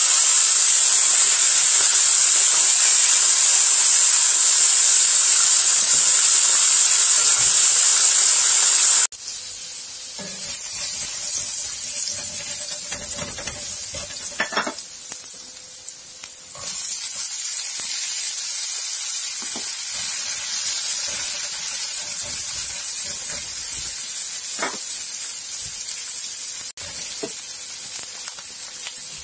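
Fish frying in hot oil in a wok: a steady sizzle while the pieces are turned with tongs. About nine seconds in it changes to the sizzle of ginger strips sautéing in the same oil, with a few brief scrapes and knocks of a silicone spatula stirring against the pan.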